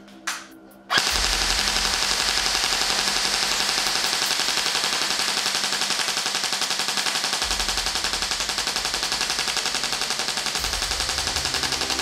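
G&G GR4 G26 pneumatic-blowback airsoft electric rifle firing on full auto: after a couple of clicks, one long unbroken burst of rapid shots starts about a second in and keeps going.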